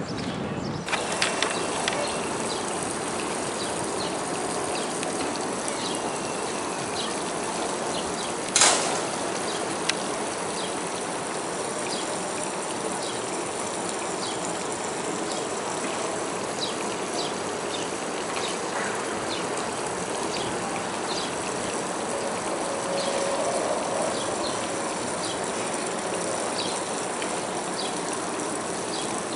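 Water gushing steadily out of a pump's discharge hose and splashing down a submarine's riveted steel hull as a flooded ballast tank is pumped out. A single sharp knock about eight and a half seconds in.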